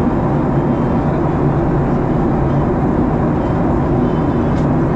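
Airliner cabin noise in flight: the steady drone of the engines and rush of air along the fuselage, heard from inside the cabin at a window seat.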